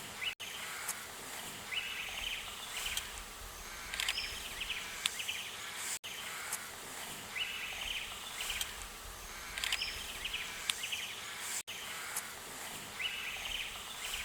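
Outdoor bush ambience of short high chirps and buzzes. The same few seconds of sound repeat about every six seconds, each repeat marked by a brief dropout.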